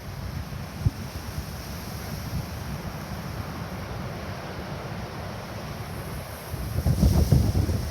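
Strong wind buffeting the microphone with a low rumble, over the wash of small surf; a brief knock about a second in, and a louder gust near the end.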